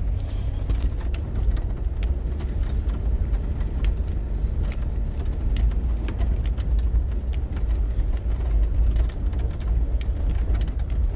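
Jeep running at low speed, heard from inside the cabin as a steady low rumble of engine and tyres on icy ground, with scattered small clicks and rattles throughout.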